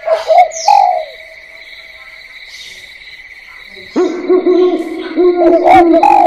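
Spotted doves cooing: a few low coos near the start, then from about four seconds in a run of repeated arching coos. A steady high-pitched tone runs underneath.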